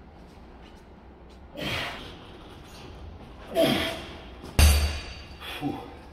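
Forceful breaths of effort from a man curling a barbell, twice, then a loaded barbell coming down with a sudden heavy clank, the loudest sound, about four and a half seconds in.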